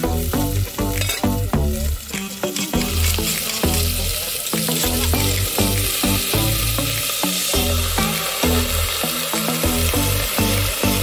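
Raw chicken pieces sizzling as they fry in hot oil with sliced aromatics in a cooking pot, the sizzle thickening about three seconds in. Background music with a steady beat plays throughout.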